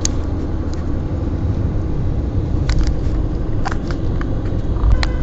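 Steady low rumble of a vehicle in motion, heard from inside, with fabric rubbing over the phone's microphone and a few sharp knocks.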